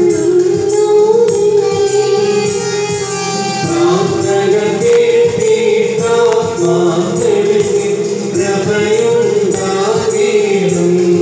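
A woman and a man singing a song together into microphones, with electronic keyboard accompaniment and a steady tambourine-like percussion beat.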